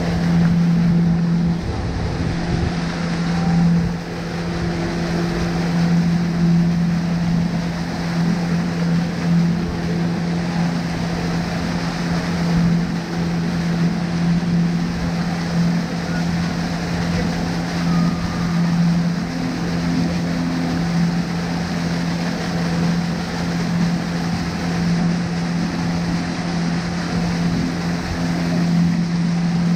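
Motorboat engine running at a steady pitch while the boat is under way, with water rushing along the hull and wind buffeting the microphone.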